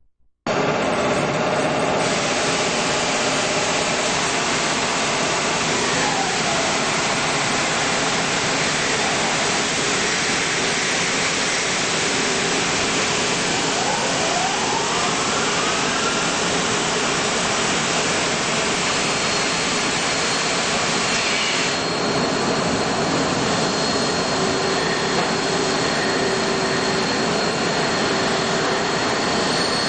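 CNC multi-tasking lathe running: a steady rushing machine noise that starts abruptly about half a second in, with faint gliding whines and a thin high tone joining in the second half.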